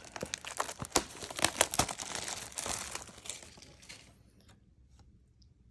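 Plastic shrink wrap on a trading-card blaster box being cut and torn open, with dense crinkling and tearing that fades out after about three and a half seconds.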